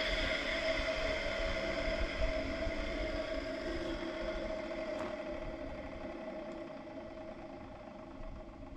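Rover Muncher electric garden mulcher running with a steady pitched motor hum, fading gradually.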